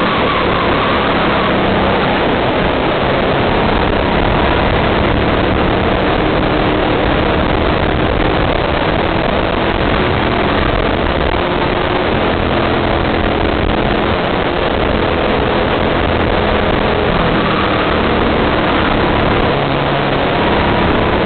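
Go-kart engine running at racing speed, heard onboard, its note rising and falling with the throttle through corners and straights, over a steady rush of wind noise on the microphone.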